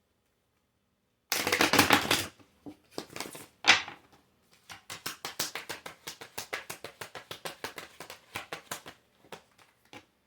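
A tarot deck being shuffled by hand to draw a clarifying card. A dense rush of cards comes about a second in, then a sharp snap, then a long run of quick card clicks at about eight a second.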